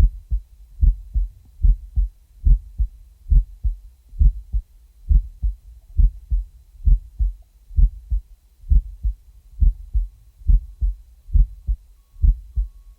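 Heartbeat: steady paired lub-dub thumps, low and dull, repeating evenly at about 70 beats a minute.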